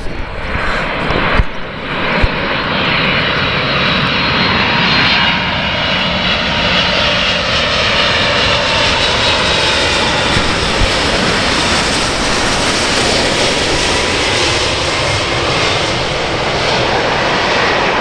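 Boeing 747 freighter's four jet engines, loud and steady as it passes low overhead with its landing gear down on approach to land, a high whine mixed into the roar.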